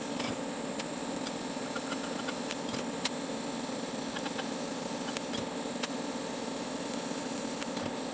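Steady mechanical hum and hiss with scattered light clicks.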